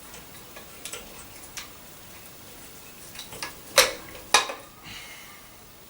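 Parts of a 1955 Hoover Junior upright vacuum cleaner being handled and pushed back into place during a belt change: scattered light clicks and taps, with two sharper clicks a little past halfway.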